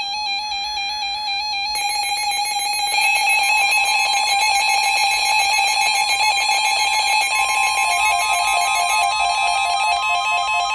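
Weather radio alert alarms going off for a severe thunderstorm warning: warbling electronic alarm tones that grow louder about two seconds in. A steady tone joins a little later, and a quick alternating beeping is added near the end.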